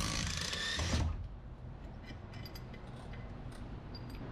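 Cordless driver spinning out a front transmission bolt, running for about a second and then stopping, followed by a few faint clicks.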